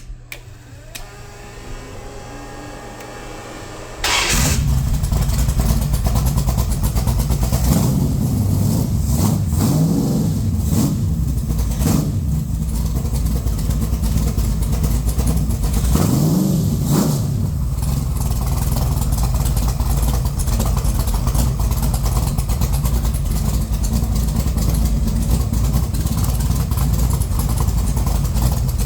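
Mopar 408 small-block V8 stroker cranking on the starter, then firing up about four seconds in and running through Cherry Bomb mufflers. It is blipped several times around ten and sixteen seconds, then settles to a steady low idle.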